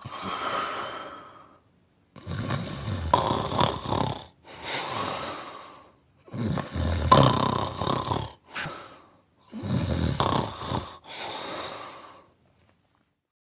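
A man snoring in his sleep: three loud snoring inhales, each followed by a softer exhaled breath.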